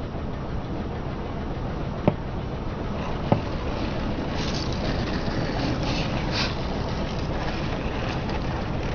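Car engine running and tyres rolling slowly, with two sharp cracks about two and three seconds in as objects snap under a tyre, then some lighter crackling.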